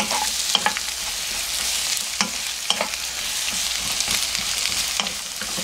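Sliced Korean zucchini, onion and green onion sizzling in oil in a nonstick wok over high heat, stir-fried with a wooden spatula that scrapes and knocks against the pan several times.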